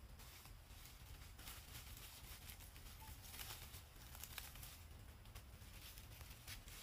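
Near silence: a faint low rumble with scattered soft rustling clicks.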